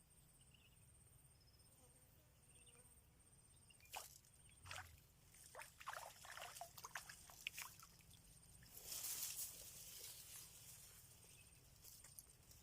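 Faint, high insect chirping in short repeated trills, then from about four seconds in a run of clicks and brief splashy, sloshing noises of water being disturbed.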